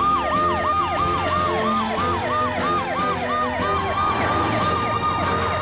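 Emergency sirens of the cartoon rescue team's police car and fire truck as they speed to a rescue: a fast yelp that falls in pitch about four times a second, with a second siren layered over it.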